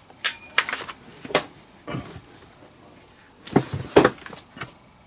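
Leather outfielder's glove being worked during heel relacing: a run of knocks and short leather rubbing and pulling noises in two bursts, with a brief high-pitched tone just after the start.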